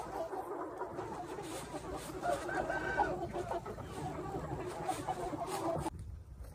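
A large flock of young Minh Du chickens clucking in a dense, continuous chorus, with one louder, drawn-out call about two and a half seconds in. The chorus stops abruptly near the end.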